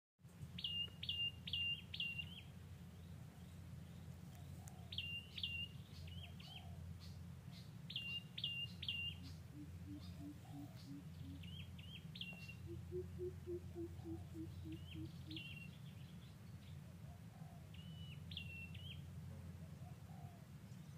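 A bird calling in short phrases of three or four quick, sharp high notes, repeated about every three seconds. A low steady hum runs underneath, and twice near the middle a faint series of low, evenly spaced hoots is heard.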